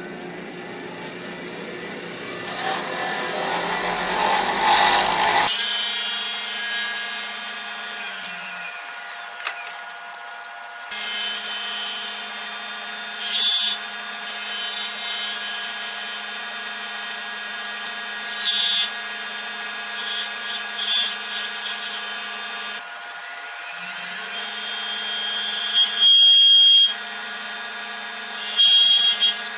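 Grizzly wood lathe running with a steady whine while a turning tool cuts a spinning pen blank on a mandrel. Several short, louder bursts of cutting come through, the loudest about three-quarters of the way in.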